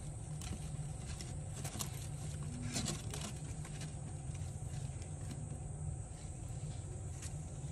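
Steady low electrical hum and high hiss, with scattered faint clicks and rustles clustered about two to three seconds in and once more near the end. The clicks and rustles come from newborn red panda cubs stirring on bamboo-leaf bedding.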